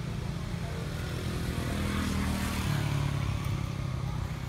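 A motor vehicle engine running nearby. It swells to its loudest about halfway through, as if passing, and its pitch shifts partway through.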